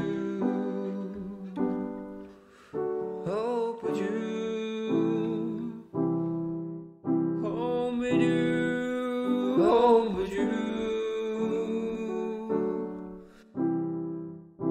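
Closing bars of a keyboard ballad: held keyboard chords that change every second or two, with a wordless sung note sliding in about four seconds in and again around ten seconds.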